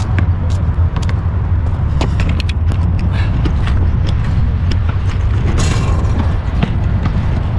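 Camera being picked up and handled: scattered knocks, clicks and scrapes, with fabric rustling against a backpack shortly before 6 s, over a steady low rumble.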